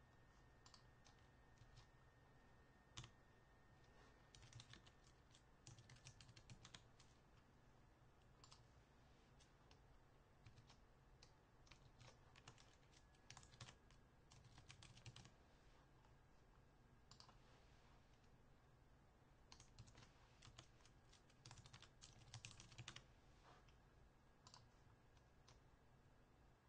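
Faint computer keyboard typing: scattered keystrokes in short irregular runs, with pauses between them.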